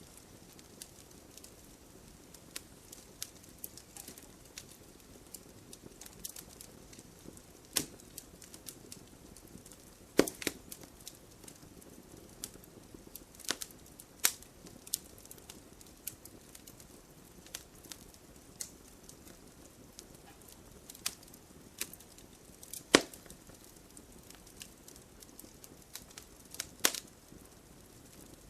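Wood fire burning in a fireplace: irregular crackles and small pops over a soft steady hiss, with a few louder snaps.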